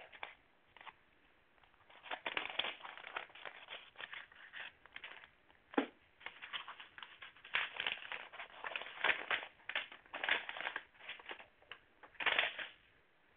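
Plastic wrapping and paper packaging crinkling and rustling in short, irregular bursts as it is handled and unwrapped, with one sharper snap about six seconds in.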